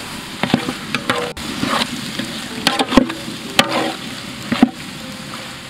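A metal ladle stirring chopped tomatoes into a frying onion masala in a large metal pot: irregular scrapes and knocks of the ladle against the pot over a steady sizzle of frying oil.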